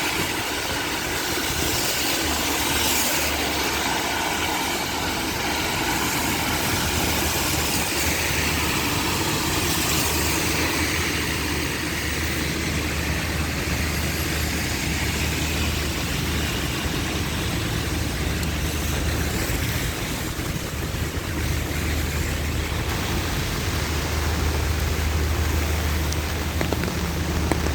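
Heavy rain pouring steadily, mixed with the low steady hum of a running vehicle engine and road traffic on wet roads.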